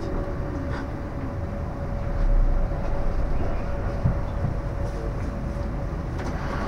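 Metro train car standing at a station platform: a steady hum with a constant tone over a low rumble. The rumble swells briefly about two seconds in, and there is a single knock about four seconds in.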